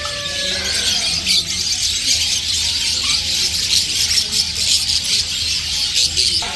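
Many small caged birds chirping and chattering at once in a dense, continuous high-pitched din.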